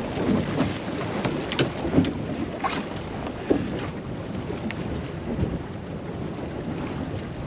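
Wind buffeting the microphone over water slapping against a fishing boat's hull in a chop, with a few short knocks.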